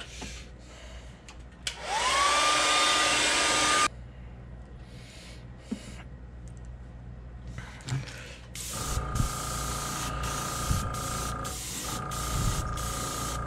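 A hair dryer runs for about two seconds, its motor whine rising as it spins up, then cuts off, drying a fresh coat of airbrushed paint on a crankbait. From about nine seconds in, an airbrush sprays neon orange with a steady hiss and a high whine, broken by short pauses.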